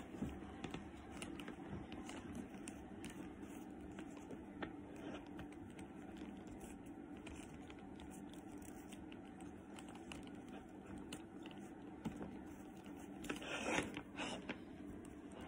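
Faint rustling and small clicks of a silk twilly scarf being wrapped by hand around a leather handbag handle, with a louder rustle about thirteen seconds in.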